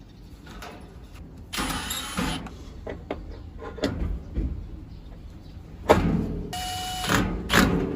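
Clattering and scraping of air-conditioner outdoor-unit parts being handled while a new fan motor and fan blade are fitted: a burst of noise about a second and a half in, and a louder, longer stretch near the end with a brief squeak.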